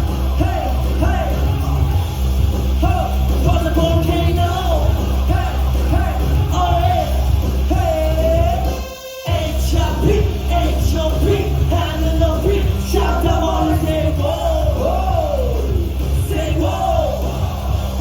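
Loud live pop music with heavy bass and voices singing a melody over it, with some yelling from the crowd. The music stops for a moment about halfway, then comes back in.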